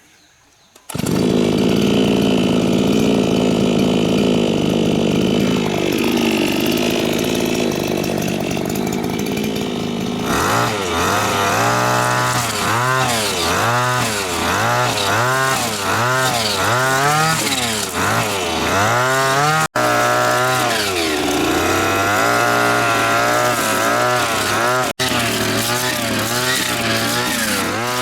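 Small petrol engine of a restored lawn mower starting abruptly and running steadily, then from about ten seconds in revved up and down over and over, roughly once a second.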